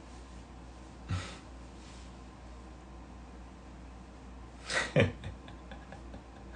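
Quiet small-room tone with a man's short breath about a second in and a brief, breathy laugh about five seconds in, followed by a few faint ticks.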